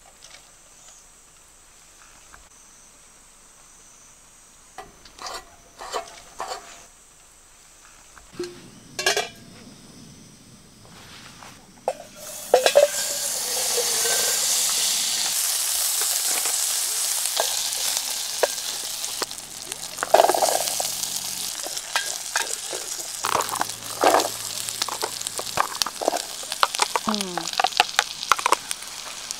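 Food dropped into a hot pan starts sizzling loudly about twelve seconds in and keeps frying. Utensils tap and scrape as it is stirred. Before that there are only a few knocks and clatters of cooking gear.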